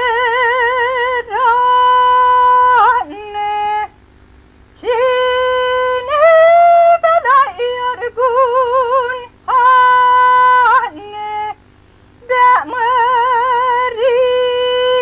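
A woman singing a slow Romanian folk song with no accompaniment heard: long high notes held with wide vibrato, broken by two short pauses.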